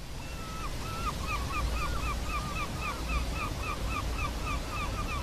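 Surf-like wash of noise with a bird calling over it: two longer notes, then a quick run of short repeated notes, about three a second.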